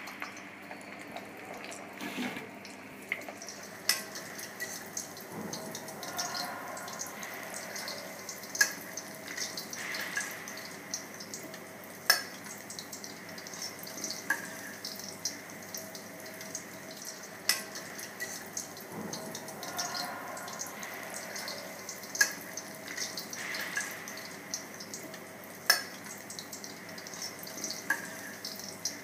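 Egg-battered cod kokotxas and sliced asparagus frying in a pan of oil: a steady sizzle with constant small crackles and a sharp pop every few seconds.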